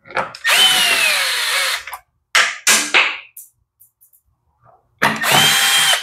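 Small cordless electric screwdriver with a nut-driver bit driving screws into the tiller engine's plastic shroud. It runs in a long whine of about a second and a half whose pitch falls, then gives two short bursts, then runs steadily again near the end.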